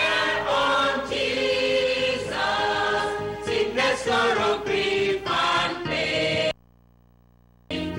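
Mixed choir of men and women singing a hymn together, on the lines "Casting all your care on Jesus" and "Sickness, sorrow, grief and pain". About six and a half seconds in the sound cuts out suddenly to near silence, a dropout in the stream, and the singing comes back just before the end.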